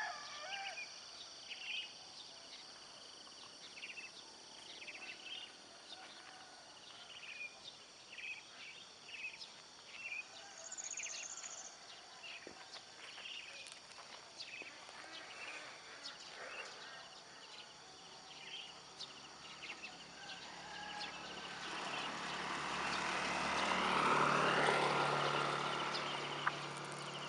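Small birds chirping in short repeated calls over a steady high insect drone. From about twenty seconds in, a passing vehicle rises, is loudest shortly before the end, then fades.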